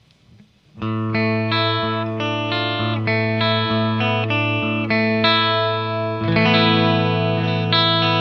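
Les Paul Custom electric guitar played through a Boss ME-50 chorus effect into Marshall amps. Picking starts about a second in: a low note rings on while notes above it change about twice a second, with another change of chord a little after six seconds.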